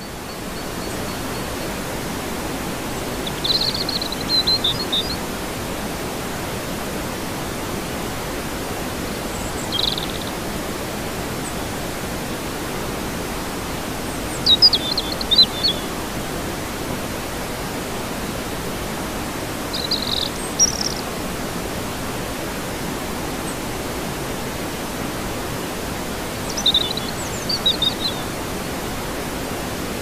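Waterfall pouring steadily into a pool, a dense, even rush of water. A bird chirps over it in short high bursts about five times.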